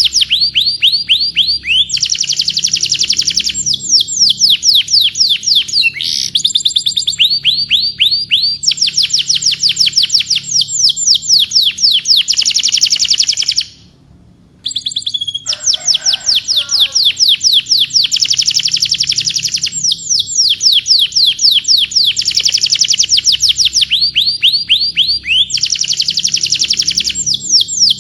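Domestic canary singing in long, rapid trills of repeated sweeping notes, phrase after phrase, with a brief break about halfway through.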